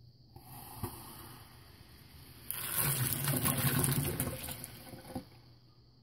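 Superheated water in a glass jar erupting into violent boiling as ground coffee is dropped in, the grains giving the bubbles somewhere to form. A hissing fizz after a small tap, then a loud rush of bubbling and spluttering for about three seconds that stops suddenly.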